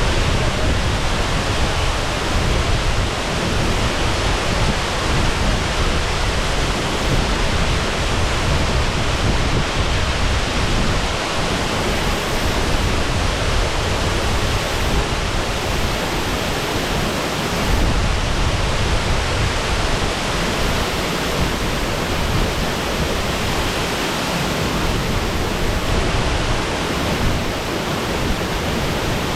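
Shasui Falls, a waterfall, rushing loudly and steadily, heard close to the falling water.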